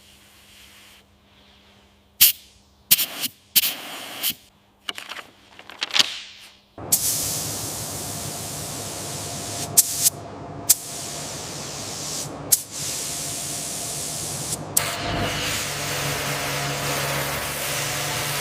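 A run of sharp clicks and knocks, then about seven seconds in a loud, steady hiss of compressed-air spraying starts and keeps going.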